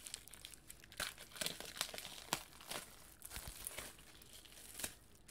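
Plastic shrink wrap crinkling and crackling in irregular bursts as a shrink-wrapped stack of comic books is opened by hand.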